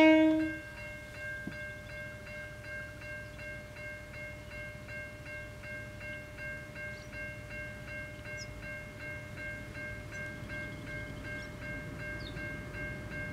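The lead diesel locomotive of an approaching freight train ends a horn blast about half a second in. A warning bell then rings steadily, about twice a second, over the low rumble of the locomotives.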